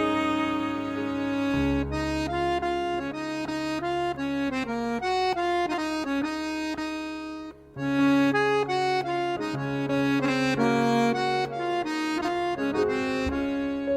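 Background music: a traditional dance tune played on accordion, a melody over held bass notes, breaking off for a moment about eight seconds in.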